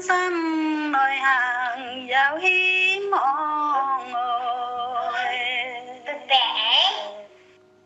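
A singer holding long, wavering notes of a song over a steady, sustained low accompaniment, fading to quiet near the end.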